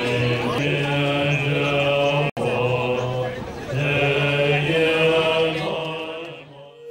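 Buddhist monks chanting together in deep, long-held notes whose pitch steps between a few levels. The chant breaks for an instant a little over two seconds in and fades out near the end.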